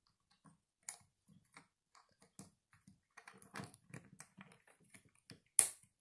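Small plastic Lego pieces clicking and tapping as fingers handle and press them together on a wooden tabletop: a faint, irregular scatter of light clicks, with one louder click near the end.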